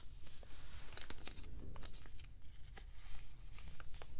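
Photocards and their plastic sleeves being handled: scattered crinkles and light clicks of plastic and card.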